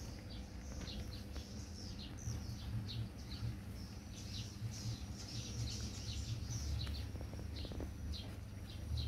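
Small birds chirping busily, a quick run of short high falling notes, over a steady low rumble.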